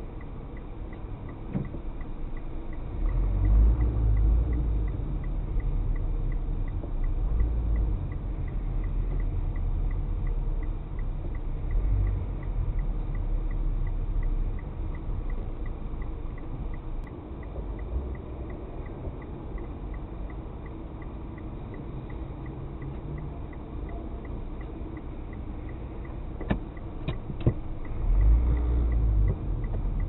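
Car cabin sound picked up by a dashcam: a low rumble from the engine and tyres as the car creeps along in traffic, swelling twice as it moves off, with a faint even ticking and a few sharp clicks near the end.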